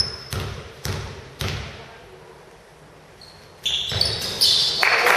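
A ball bouncing on a hard hall floor, four thuds about half a second apart that ring in the hall. A loud wash of crowd noise rises in the last second or so.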